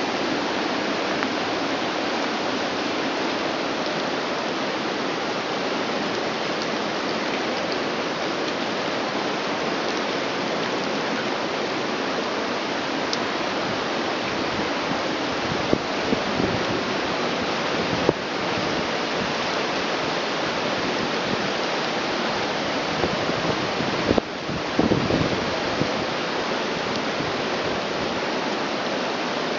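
Steady rushing noise of a flooded river running high and rough, mixed with falling rain. A few brief knocks or bumps stand out partway through.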